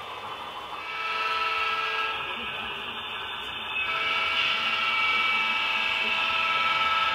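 Model diesel locomotive's sound-decoder horn sounding through its small onboard speaker: a steady chord of several tones, in two blasts, the first starting about a second in and a longer one about four seconds in.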